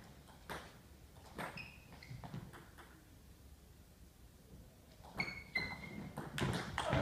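Table tennis ball hitting bats and table: a few sparse clicks, then from about five seconds in the serve and a rally, with short ringing pings on each hit and the hits coming quicker near the end.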